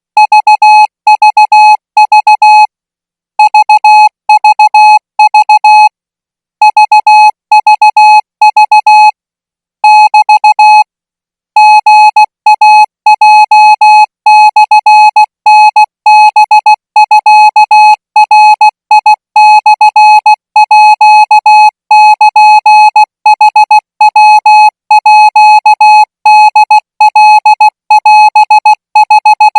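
Morse code practice signal sent as a single electronic beep tone at 20 words per minute, the Thai radio code. Short dots and longer dashes are keyed in quick groups with brief gaps between characters. A few longer pauses come in the first dozen seconds, after which the sending runs on without a break.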